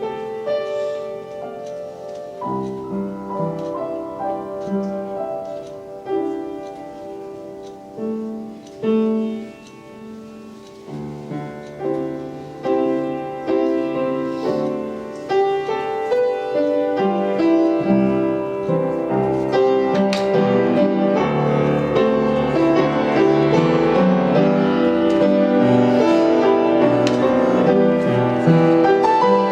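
Slow worship music led by piano or keyboard, playing sustained chords. About two-thirds of the way through, the music fills out and grows louder.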